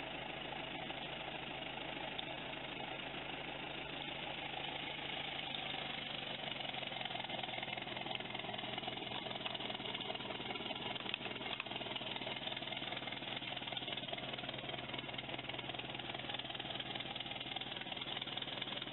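Engine of the Ford circus wagon tribute truck idling steadily.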